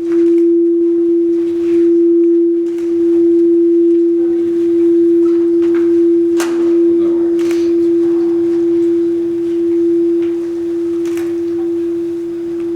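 Bonshō, a large Japanese bronze temple bell, ringing on after being struck: one steady low hum that swells and fades in slow waves and slowly dies away toward the end.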